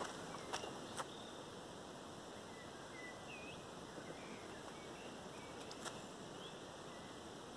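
A few footsteps on dry leaf litter, two in the first second and one near the end, over a steady outdoor hiss. A few faint, short bird chirps in the middle.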